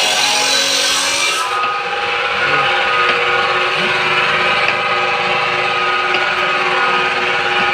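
Power tool running with a steady whine and a rasping noise against the work. A harsher, hissing edge fills the first second and a half, then drops away.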